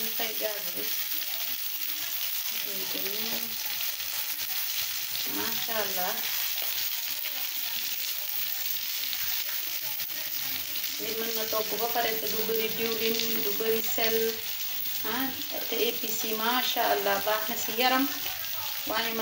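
Breaded sea bream fillets sizzling steadily as they shallow-fry in a little oil in a nonstick pan, browned and ready. Pitched sounds like a background voice rise and fall over the sizzle, more often in the second half.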